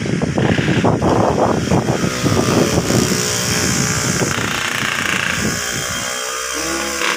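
Motorcycle engine running close by, loud, its pitch shifting as it goes.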